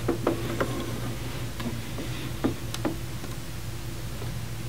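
Light clicks and knocks of a metal instrument enclosure being handled and opened: about half a dozen sharp ticks in the first three seconds, over a steady low hum.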